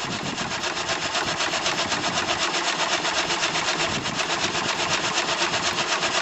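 Small stationary steam engine running, its exhaust beating in a fast, even rhythm with mechanical clatter from the moving parts.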